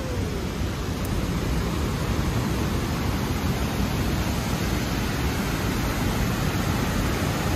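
Steady rushing of water pouring over small waterfalls.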